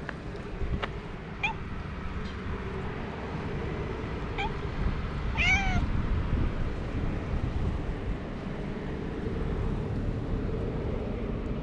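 Stray cat meowing while being stroked: a short call about a second and a half in, another around four and a half seconds, then a longer, louder meow about halfway through, over a steady low rumble.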